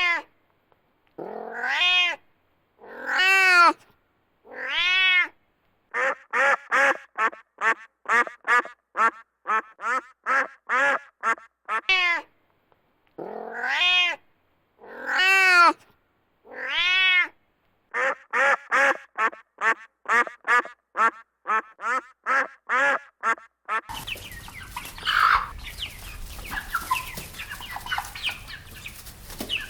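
Domestic cat meowing: a few long, rising-and-falling meows, then a quick run of short meows about two a second. The same sequence plays again, and near the end it gives way to a faint, noisy background.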